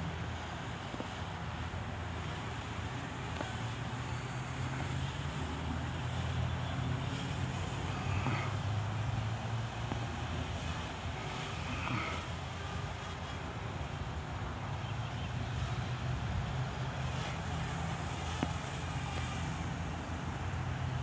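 Parrot Bebop quadcopter's propellers and electric motors humming steadily, the pitch shifting up and down as the drone manoeuvres.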